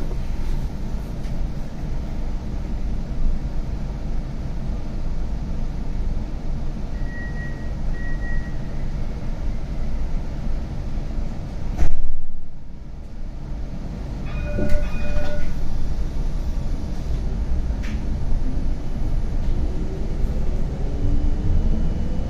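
CAF Urbos 100 tram running on its rails, heard from on board as a steady low rumble. About halfway through there is a sudden loud clunk and a briefly quieter spell, then a short electronic tone. Near the end the whine of the traction motors rises as the tram accelerates.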